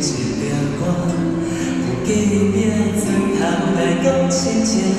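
Male voice singing a slow folk ballad in Taiwanese Hokkien, accompanied by two acoustic guitars, played live.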